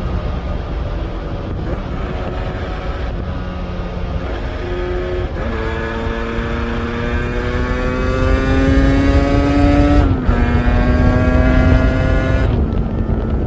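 Yamaha RZ350's two-stroke parallel-twin engine running under throttle. Its pitch steps up about five seconds in and climbs steadily for several seconds, then drops a little, typical of an upshift, and drops again near the end.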